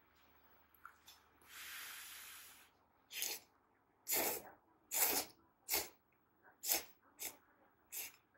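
Person slurping udon noodles: a long breathy draw, then about seven short, sharp slurps.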